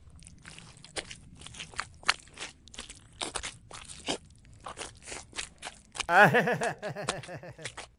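A rapid, irregular run of short crunching clicks over a low hum, with a wavering, pitched cry about six seconds in that lasts a little over a second and is the loudest part.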